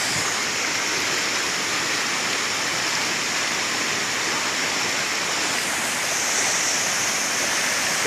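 Steady rush of a waterfall pouring into its pool, mixed with water running over the rocks of the shallow stream below it.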